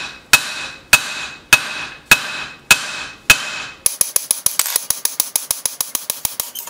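Hand hammer striking a red-hot steel knife blade on an anvil, one blow about every 0.6 s, each followed by a short metallic ring. About four seconds in it changes to quick, lighter strokes, about seven a second.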